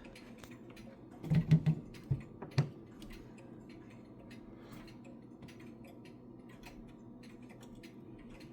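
Ridgeway grandfather clock ticking with faint, light clicks, and a few dull thumps between about one and three seconds in.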